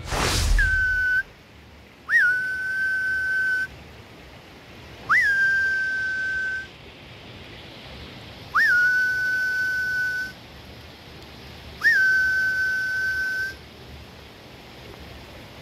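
Five long whistles held on one steady pitch, each opening with a quick upward flick, coming about every three seconds. The first is short and the others last about a second and a half. A whoosh sounds at the very start.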